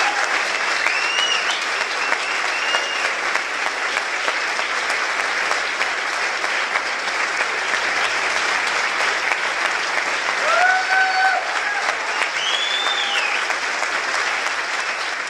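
Audience applauding steadily, with a few short whoops and cheers on top.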